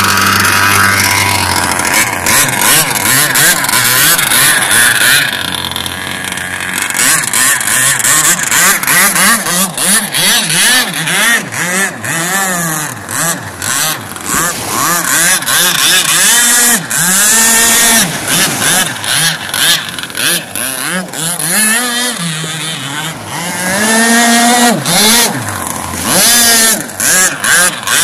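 Gas-converted Pro Boat Blackjack 55 RC speedboat's 26cc Zenoah two-stroke engine revving hard, its pitch climbing and dropping again and again as the throttle is blipped on and off, with frequent short crackles over it.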